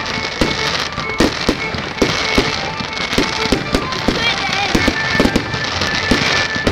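Aerial fireworks display: many sharp bangs and crackles from bursting shells, several a second and irregular.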